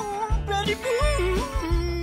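Background music: a single singing voice sliding between notes over a steady low bass beat.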